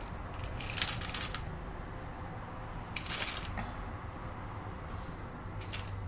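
Coffee beans poured from a scoop into a stainless steel dosing cup on a scale, rattling against the metal in three short bursts while the dose is topped up to 18 grams. The first pour, a little before a second in, is the longest and loudest; a shorter one comes about three seconds in and a brief trickle near the end.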